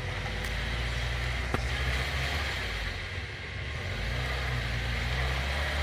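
Off-road vehicle engine running, a steady low drone that dips briefly about three seconds in and then picks up again, with one sharp knock about one and a half seconds in.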